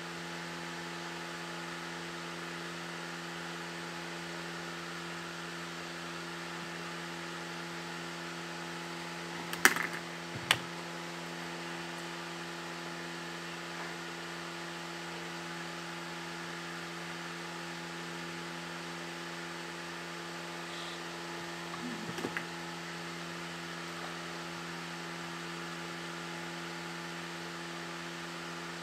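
Steady mechanical hum with a few constant low tones, like a running fan. About ten seconds in, two sharp clicks a little under a second apart, and a brief soft handling sound a little after 22 seconds.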